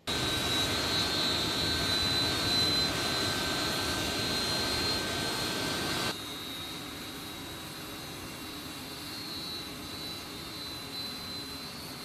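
C-17 Globemaster III's Pratt & Whitney F117 turbofan engines running, a steady jet roar with a high whine over it. The sound drops noticeably in level about six seconds in and carries on steadily at the lower level.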